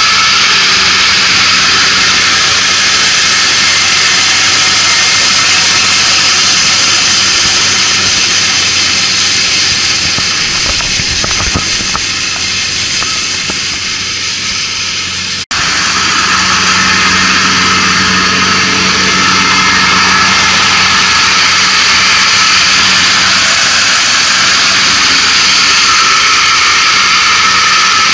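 Kubota ANR460 crawler combine running while harvesting lodged rice: steady engine and threshing-machinery noise, loud up close. It grows quieter for a few seconds past the middle as the machine works farther off, then returns loud after a sudden cut.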